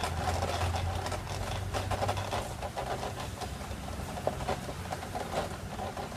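A low, steady engine-like rumble, strongest in the first couple of seconds, under scattered light knocks and scuffs of a climber's shoes and hands against a wooden obstacle wall.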